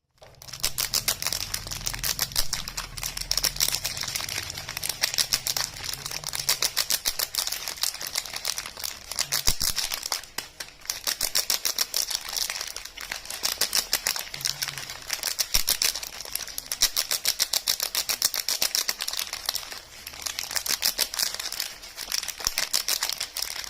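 Dense, rapid crinkling and crackling of soap wrappers being handled and unwrapped, with brief pauses about ten and fourteen seconds in.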